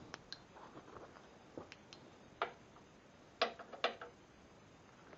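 Scattered light clicks and knocks of hands handling a sliding compound miter saw and tools. The loudest are three sharp clicks about two and a half, three and a half and four seconds in.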